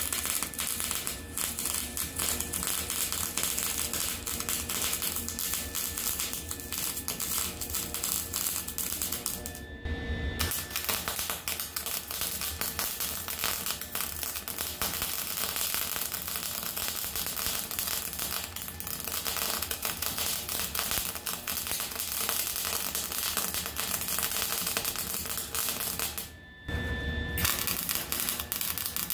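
Wire-feed welder's arc crackling steadily as it welds up the ground-out cracks in a wood stove. The arc stops briefly twice, about ten seconds in and near the end.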